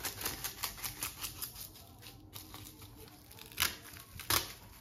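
Dry nori seaweed sheet crackling as it is creased and broken in half by hand, with two louder sharp snaps in the second half.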